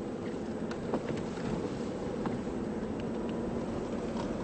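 Car driving on a snow-covered road, heard from inside the cabin: steady engine and road noise.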